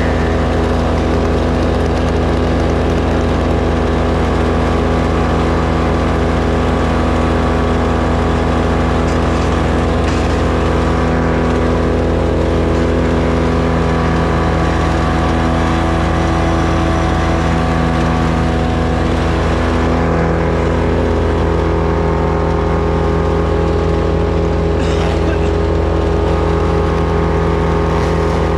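An engine running steadily at one constant speed, with no revving or load changes.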